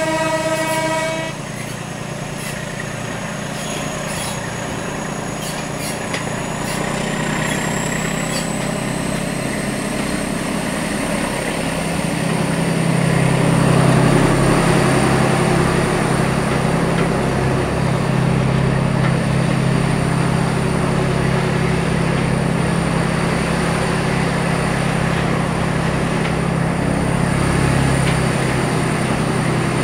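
A Class 14 diesel-hydraulic locomotive's two-tone horn sounds and stops about a second in. Then the train runs steadily, engine and wheels heard from a carriage window. The noise grows louder and heavier at about 13 s as the train enters a tunnel.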